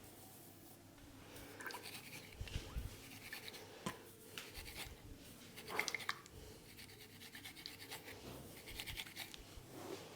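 Fingers scratching and rubbing through hair on the scalp during a head massage: faint, irregular scratchy rustling, with a sharper click about four seconds in and a louder one about six seconds in.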